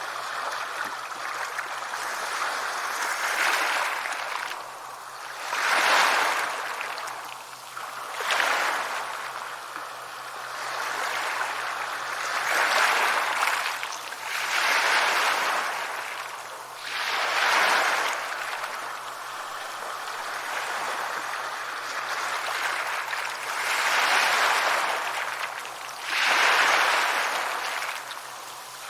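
Ocean waves washing onto a shore, swelling and falling away every few seconds in a slow, uneven rhythm.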